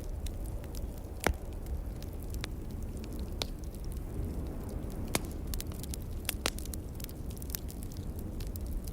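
Wood fire crackling, with irregular sharp pops, the loudest about a second in and about five seconds in, over a steady low rumble.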